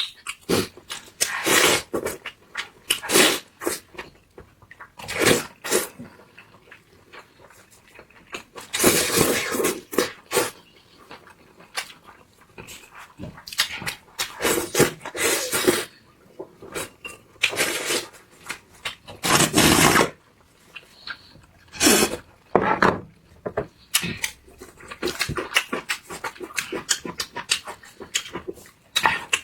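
Close-miked eating sounds: chewing and gnawing meat off spicy lamb shank bones, in irregular bursts a second or two long with short pauses between them.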